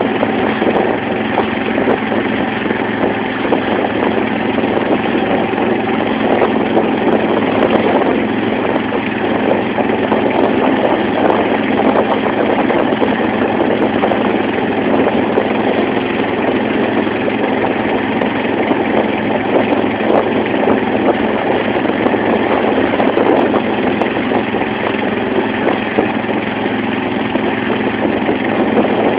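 Engine of a wooden banka motorboat running steadily at cruising speed, with water splashing and rushing along the hull.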